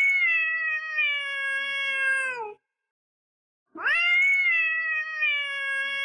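Domestic cat meowing twice, each meow long and drawn out, about three seconds, and dropping in pitch as it ends.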